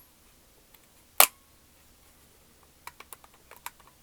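Sharp plastic clicks from handling an IBM PCjr analog joystick: one loud click about a second in, then a quick run of lighter clicks and taps in the second half.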